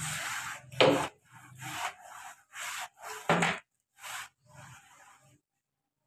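A floor cloth on a stick-handled floor wiper rubbed back and forth over a concrete floor: a run of scraping strokes, roughly one or two a second, with two louder, sharper strokes about a second in and just past three seconds. The strokes stop shortly before the end.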